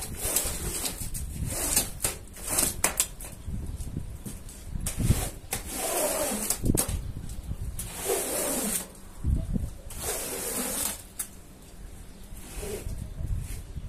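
Rubber floor squeegee pushed in repeated strokes across a soaked, muddy rug, scraping wet mud and water off the pile, about one hissing stroke a second.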